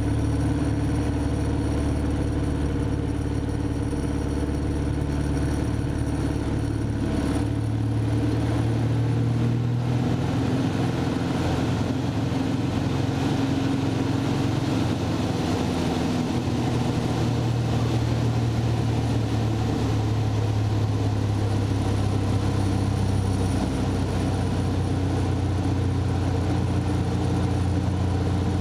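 Van's RV light aircraft's piston engine and propeller droning steadily in the cockpit, its pitch shifting slightly up and down a few times as the plane flies aerobatic manoeuvres.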